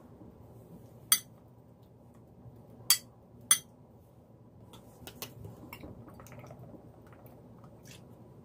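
Kitchenware clinking: three sharp clinks in a little over two seconds, the first about a second in, followed by a run of softer clicks and knocks.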